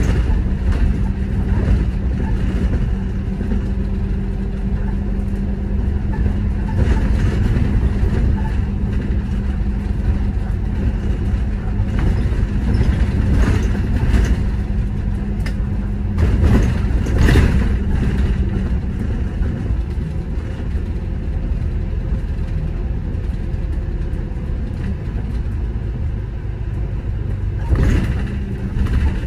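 City bus driving: a steady engine and road rumble, with a hum that stops about two-thirds of the way through. A few short knocks or rattles sound along the way.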